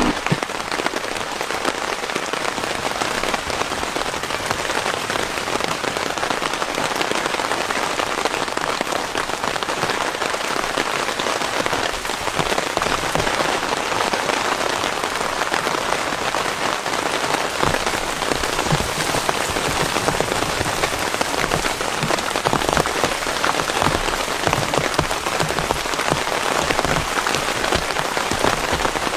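Heavy rain falling steadily, a dense spray of drops striking a surface.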